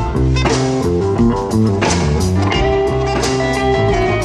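Rock band playing an instrumental stretch without vocals: electric guitar and bass over drums, with cymbal-backed hits about every one and a half seconds.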